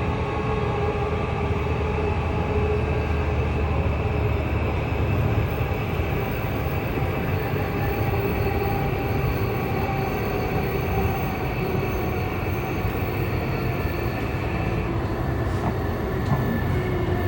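Running noise heard inside a JR East E235-1000 series electric train: a steady rumble of wheels on rail, with a few faint steady tones laid over it. The highest tone stops about 15 seconds in.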